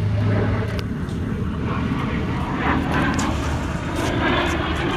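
Lockheed T-33 Shooting Star's single Allison J33 turbojet heard from the ground as the jet flies aerobatics overhead: a steady, broad rumble.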